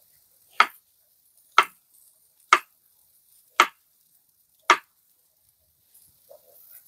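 Five sharp chopping knocks, evenly spaced about one a second.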